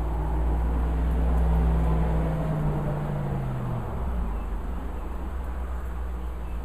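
A vehicle passing on the road: its engine hum and tyre noise are loudest about a second and a half in, then drop in pitch and fade about four seconds in. Steady rain hiss underneath.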